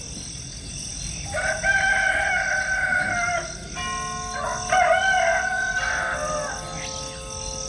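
A rooster crowing twice, a long crow about a second in and a second one about four and a half seconds in. Held instrumental chords come in between the two crows and carry on under the second.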